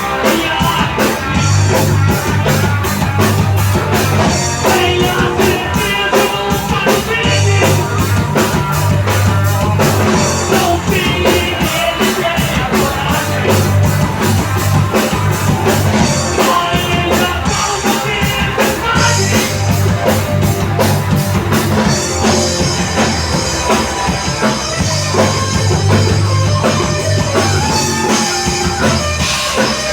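Rock band playing live, with a steady drum-kit beat driving the song.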